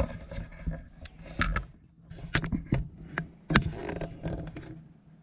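Handling noise from a handheld camera being moved and carried: scattered knocks, clicks and rustles, the sharpest about a second and a half and three and a half seconds in, over a faint steady low hum.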